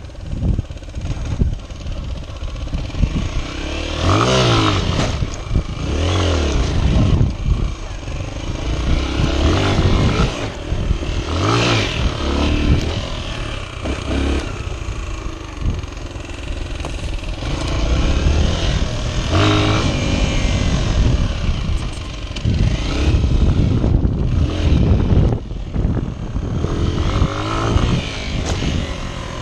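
Honda XR 125's single-cylinder four-stroke engine revving up and falling back many times as the bike is ridden off-road, with frequent knocks from the bike.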